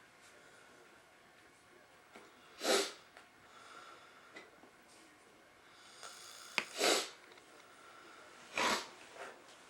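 A man snoring in his sleep: three short, loud snorts about four seconds and then two seconds apart, with softer breathing between them.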